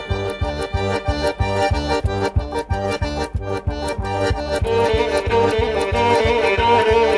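Instrumental background music with a steady beat of about three to four strokes a second under held melodic notes; a new sustained melody line comes in about two-thirds of the way through.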